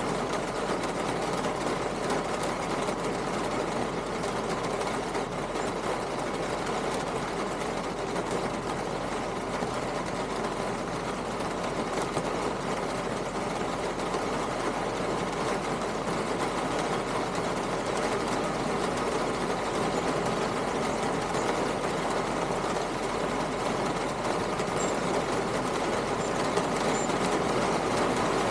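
A steady, unchanging mechanical hum, like a motor running.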